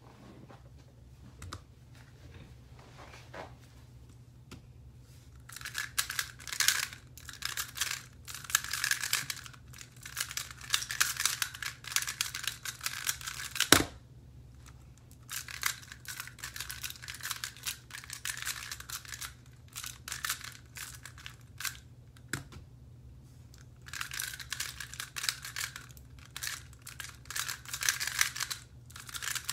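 Square-1 puzzle being turned fast by hand: plastic layers clicking and clacking in three long bursts of several seconds each. A sharp slap on a speedcubing timer's pads about midway stops a solve. A faint low hum underneath.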